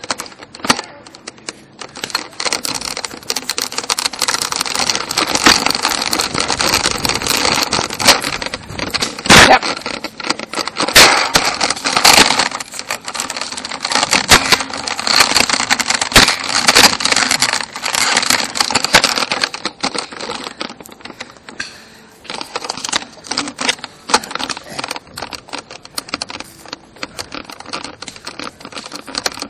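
Handling noise from a Nerf Quadshot blaster and the camera mounted on it, swinging as it is carried: a dense run of irregular plastic clicks, knocks and rattles, busiest in the middle and thinning out near the end.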